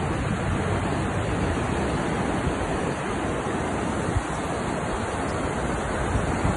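Steady rush of breaking surf and wind, with wind buffeting the phone microphone in uneven low gusts.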